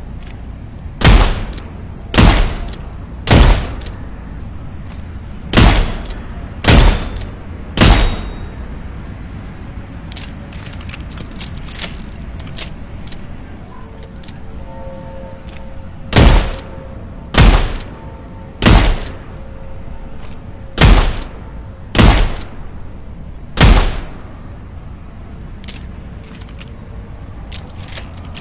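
Snub-nose .38 revolver firing twelve shots in four quick strings of three, each shot about a second apart, with lighter metallic clicks in the pause between the second and third strings.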